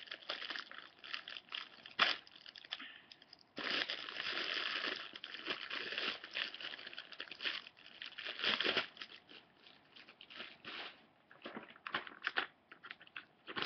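Clear plastic bag crinkling and rustling in irregular crackles as it is squeezed and handled, most continuous from about four to eight seconds in.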